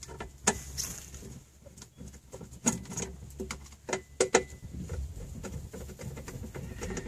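Hands working at the latch of a slide-gate opener's plastic cover: irregular clicks and knocks of plastic. The sharpest come about half a second in, around three seconds in, and as a quick pair about four seconds in.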